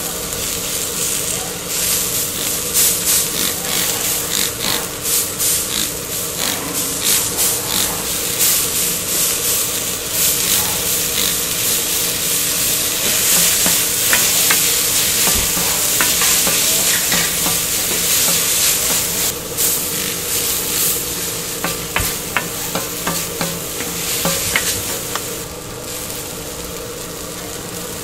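Thick udon noodles sizzling on a flat-top steel griddle while they are tossed and stirred with wooden spoons, with frequent quick taps and scrapes of the wood on the hot metal. A steady hum runs underneath.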